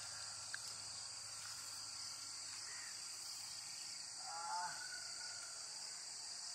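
Steady high-pitched chirring of crickets and other night insects, with a brief faint call about four seconds in.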